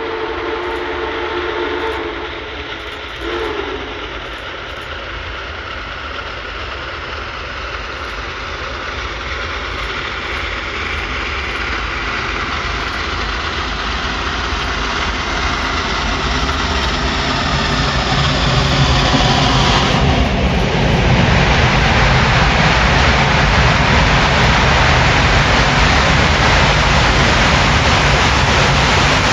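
Union Pacific Big Boy 4014, a 4-8-8-4 articulated steam locomotive, sounding its chime whistle for the first three seconds or so, then its exhaust and running gear rumbling and growing steadily louder as it approaches. At about 20 seconds it becomes much louder and fuller as the locomotive enters the tunnel and the sound echoes around it.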